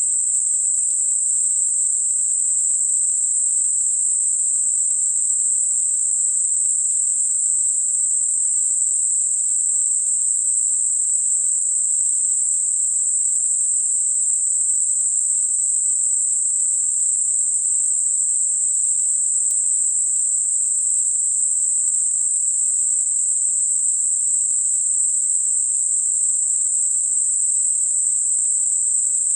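Synthetic narrow-band noise centred at 8 kHz, rolling off smoothly either side across roughly 6 to 10 kHz: a steady, high-pitched hiss made as a tinnitus masker.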